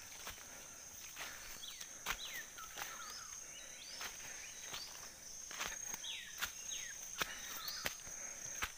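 Footsteps on the forest floor, roughly once a second, over a steady high-pitched insect drone. A bird calls several times with short notes that slide downward, twice in quick pairs.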